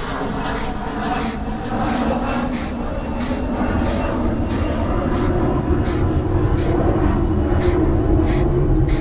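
Paint sprayer running while black paint is sprayed on: a steady low motor rumble with a sharp hiss pulse about one and a half times a second.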